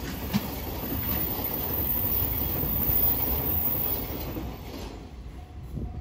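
Container wagons of a long freight train rolling past at speed, a steady rumble of wheels on rail with the odd click over rail joints. The noise fades near the end as the last wagons pass.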